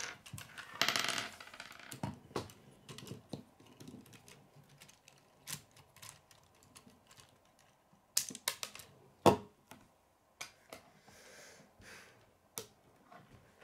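Plastic K'nex rods and connectors clicking and knocking as they are handled and snapped together: scattered sharp clicks, a short rattle about a second in, and one louder click about nine seconds in.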